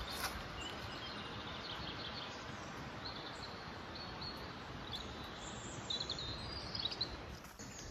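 Small songbirds chirping, with a run of short high calls in the middle and latter part, over a steady rushing hiss.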